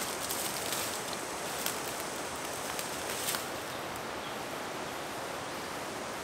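A few soft footsteps on dry leaf litter and sandstone in the first three seconds, over a steady rustling outdoor hiss of bush foliage.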